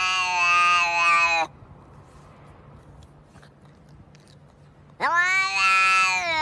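Domestic cat meowing: a long meow that ends about a second and a half in, then, after a pause of a few seconds, another long meow that rises sharply in pitch at its start.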